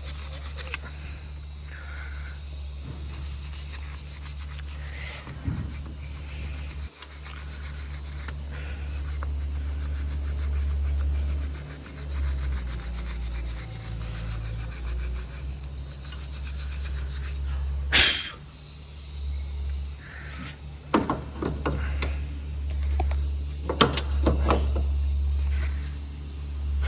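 A small hand wire brush scrubbing back and forth on the metal hub mounting surface of the wheel knuckle, scraping off rust and dirt before a new wheel bearing hub is fitted, with a few sharper knocks in the second half over a steady low hum.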